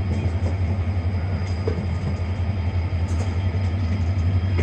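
Steady running rumble of a moving Indian Railways passenger train, heard from an open coach doorway: wheels on rail and rushing air, with a few faint clicks.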